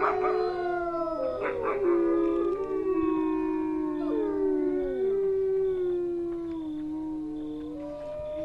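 A pack of wolves howling: several long howls overlap, each sliding slowly up and down in pitch, with a brief snarl about a second and a half in.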